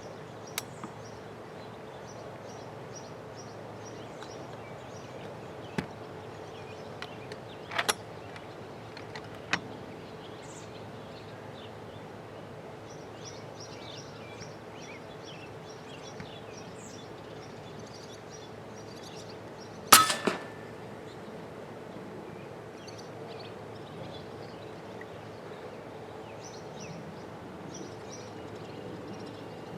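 A single sharp crack of an FX Impact M3 .30 calibre PCP air rifle firing at a groundhog about two-thirds of the way in, followed right after by a couple of smaller knocks. Before it, a steady outdoor background with faint high bird chirps and a few light clicks.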